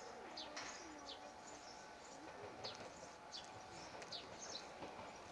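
Faint small-bird chirps: short, high, downward-slurred notes repeated every half second or so.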